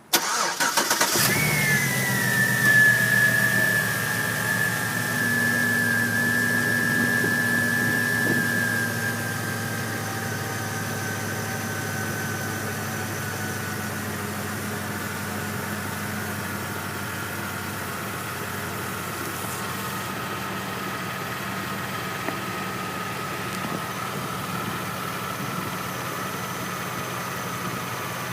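2004 Chevrolet Avalanche's 5.3-litre V8 started: it catches about a second in and runs at a high idle, then settles to a lower steady idle around ten seconds in. A high whine rides over the engine, falling slowly in pitch as the revs come down.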